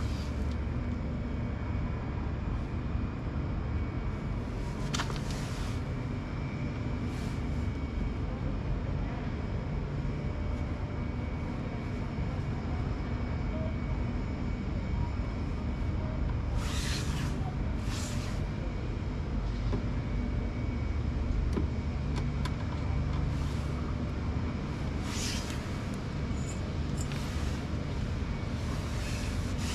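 Top-loading pulsator washing machine running, a steady motor hum and rumble with a few short hissing bursts.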